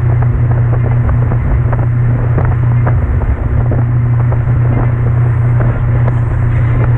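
Small speedboat running at speed, its engine a steady low drone, with the hull slapping the chop and spray hissing in many short sharp splashes.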